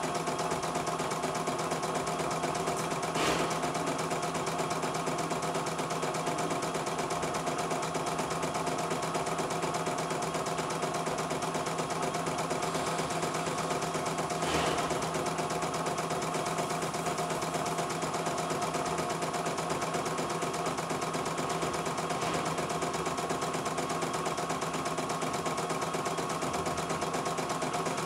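CNY E900 portable embroidery machine stitching a design, its needle running at a rapid, even pace while the hoop carriage moves the fabric. Two brief louder clicks break in, about three seconds in and about halfway through.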